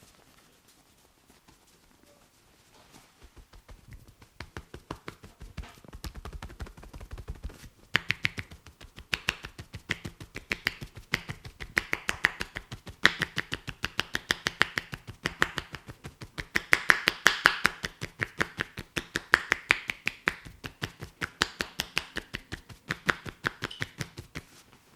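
Quick, rhythmic percussive tapping of a masseur's hands on a client's head during an Indian head massage: a steady run of sharp claps, several a second. It builds in a few seconds in, is loudest in the second half and stops just before the end.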